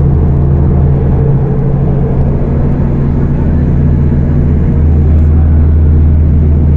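Scania K250UB city bus's five-cylinder diesel engine running under way with a steady low drone. About two-thirds of the way in, the low note grows fuller and a little louder.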